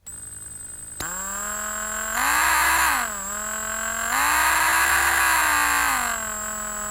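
Electric drill motor whirring at a steady speed. It speeds up to a higher, louder pitch twice, briefly about two seconds in and again for about two seconds from four seconds in, then drops back each time.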